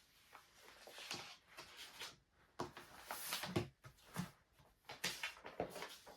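Quiet handling sounds: a string of short rustling swishes and a few soft knocks, as of things being picked up and moved about.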